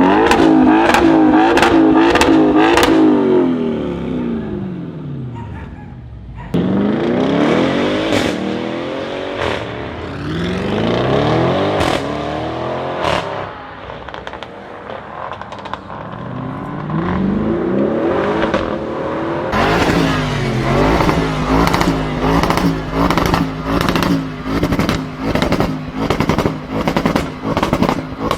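Audi RS6 engine revving and accelerating, its pitch climbing and dropping through several pulls and gear changes, with sharp exhaust crackles over the first few seconds. Near the end it is held at a steady tone with quick throttle blips about once a second.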